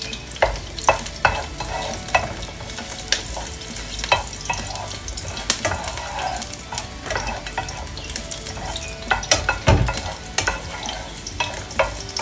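Garlic cloves sautéing in oil in a nonstick frying pan, sizzling while a wooden spoon stirs them, with irregular taps and scrapes of the spoon against the pan and one dull bump near the end. The garlic is being cooked only until fragrant, not browned.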